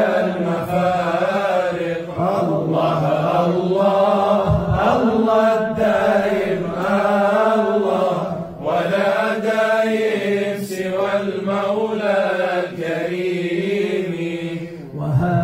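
Unaccompanied-sounding devotional chanting of a Sufi qasida: a drawn-out, wavering melodic vocal line over a steady held drone. It moves in long phrases with short breaks about two and nine seconds in and near the end.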